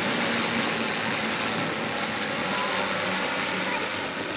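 Zlin aerobatic trainers flying past in formation, their piston engines and propellers making a steady drone.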